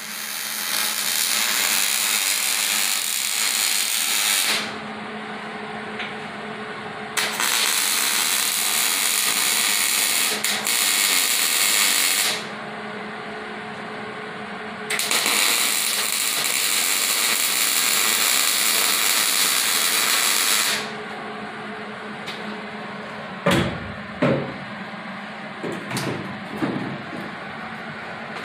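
MIG welder laying three welds on steel roll cage tubing, each a sizzling crackle of about five seconds with short pauses between, over a steady low hum. A few sharp knocks follow near the end.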